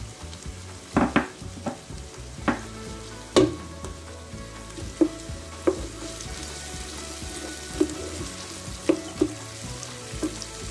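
Vegetables sizzling in oil in a nonstick pan while pickled cabbage is stirred in with a wooden spoon. The spoon knocks against the pan about a dozen times at irregular intervals.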